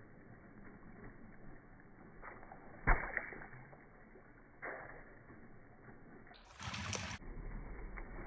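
Slowed-down, muffled sound of a tennis racket moving through swimming-pool water, with a sharp slap about three seconds in and a weaker one nearly two seconds later. About six and a half seconds in comes a short burst of brighter splashing hiss.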